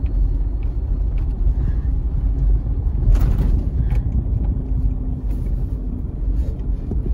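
Car cabin noise while driving: a steady low rumble of engine and tyres on the road, with a brief louder rush of noise about three seconds in.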